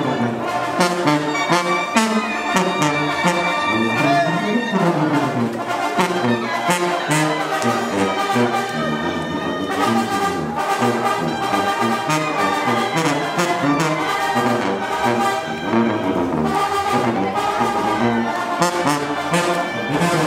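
Brass band music, with trumpets and trombones playing a tune over frequent sharp hits.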